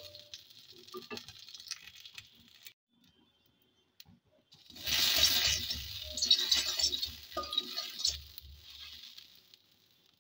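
Spices frying in hot mustard oil in a kadai: a sizzle with small crackles as they are stirred. The sizzle fades and breaks off, then comes back louder about five seconds in, with a steel spoon scraping and clinking against the pan, and dies away before the end.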